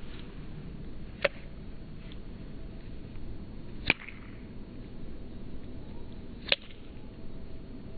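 Three sharp clicks about two and a half seconds apart over a steady low rumble, all slowed down five times.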